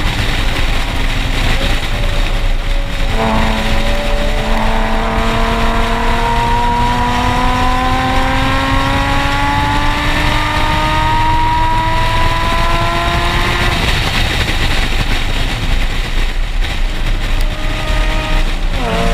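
Nissan 370Z's 3.7-litre V6 through a Tomei aftermarket exhaust, pulling hard on track: the exhaust note climbs steadily in pitch for about ten seconds, then falls away into road and wind noise. Near the end comes a quick dip and rise in engine pitch, as on a downshift. A heavy low rumble of wind and road runs under it all.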